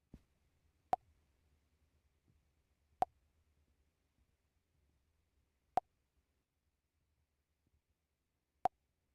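Four short, sharp clicks spaced unevenly a few seconds apart, each with a brief pop-like pitch, over a faint low hum.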